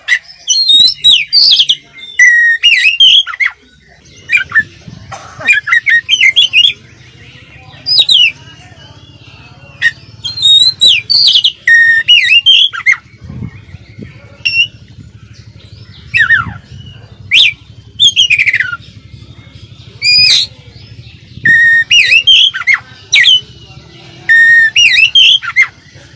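Oriental magpie-robin (kacer) singing hard: loud bursts of quick, varied whistles, slurred notes and chirps, each a second or two long with short pauses between, its song packed with mimicked fill-in phrases (isian).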